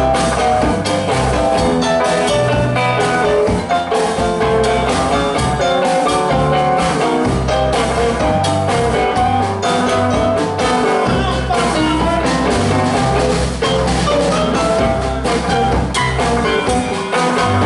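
Live roots and blues band playing: acoustic guitar, drum kit and a keyboard piano over a steady beat.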